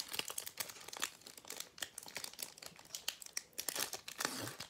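Foil wrapper of a Pokémon Sun & Moon booster pack crinkling and tearing as it is pulled open by hand: a rapid, irregular run of crackles.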